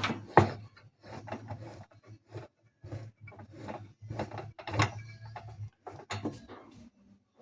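Metal clicks and knocks as a hooked basket-removal tool is fitted and worked against a washing machine's basket hub, with one louder knock about half a second in.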